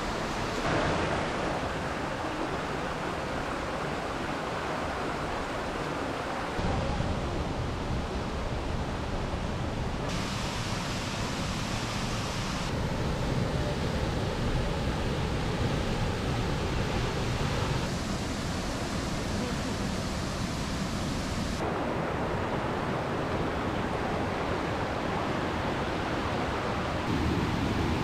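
Rushing water of a rainforest stream and small waterfalls, a steady rush whose tone and level change abruptly every few seconds.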